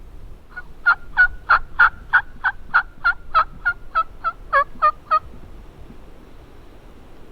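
Turkey yelping: a run of about fifteen evenly spaced yelps, roughly three a second, starting about half a second in and stopping about five seconds in, over faint wind noise.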